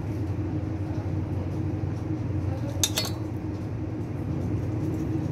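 Kitchenware clinking, a couple of quick sharp strikes about three seconds in, over a steady low hum.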